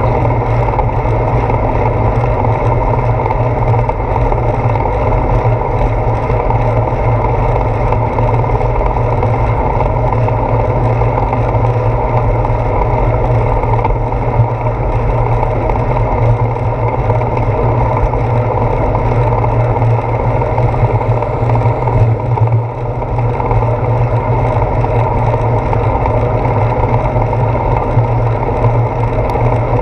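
Steady rumble of wind and road vibration picked up by a handlebar-mounted GoPro Hero 4 on a moving bicycle, riding over wet pavement. It dips briefly about three-quarters of the way through.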